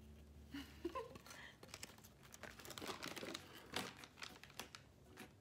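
Crinkling and rustling of packaging being handled, a run of small irregular crackles.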